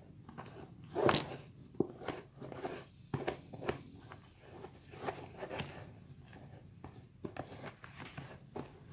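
A utensil stirring foam beads into glue in a bowl: irregular scraping and clicking strokes, the loudest about a second in.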